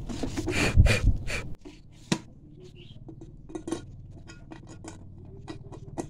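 Hands handling a metal electric kettle body and its plastic base connector: rubbing and knocks for about the first second and a half, then a sharp click and a run of light clicks and taps as the part is fitted.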